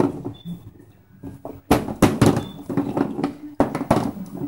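Golf balls knocking and rolling in the plastic hollows of an indoor putting-green mat as a kitten paws at them. The first second and a half holds only a few faint knocks, then comes a quick, loud clatter of knocks from about two seconds in, a short gap, and more knocking near the end.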